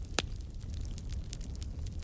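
Wood campfire crackling: a stream of small pops, with one louder pop near the start, over a steady low rumble.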